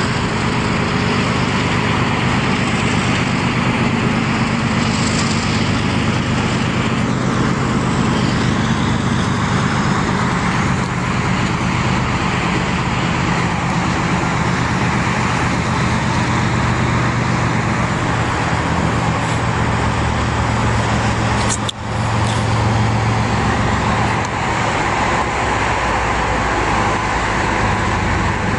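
Steady din of heavy highway traffic mixed with the low drone of diesel freight locomotives moving slowly past. One sharp click comes about three-quarters of the way through.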